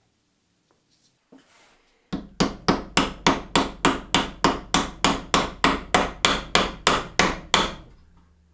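A small mallet tapping a carved wooden stick handle, glued into a drilled hole, home into a small wooden pot lid. About twenty quick, even taps, a little over three a second, starting about two seconds in.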